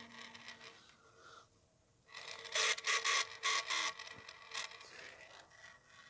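Clothes dryer motor turned by hand in the reverse direction, its worn bearings giving an irregular scraping, grinding noise that comes in uneven strokes from about two seconds in. The noise shows only in this direction of rotation and is the sign that the motor bearings are stuffed.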